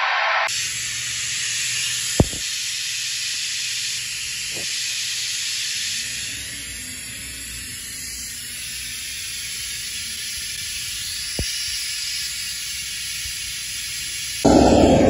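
Test noise played as a steady hiss through a car audio trunk speaker rig, coming only from its upper drivers above about 1 kHz, with three sharp clicks along the way. Near the end it jumps louder and fills in down to the bass as the full range of drivers plays the noise.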